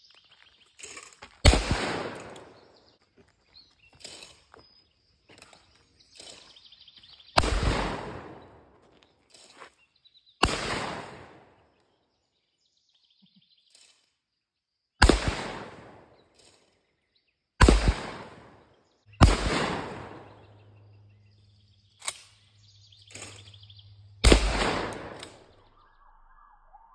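Shotgun shots at flying clay targets: seven loud blasts a few seconds apart, each followed by an echo that fades over a second or two. Fainter sharp clicks fall between the shots.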